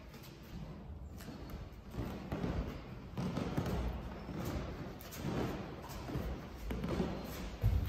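Irregular thuds and scuffs of a dancer's feet and body moving on a wooden floor, with the loudest thump near the end.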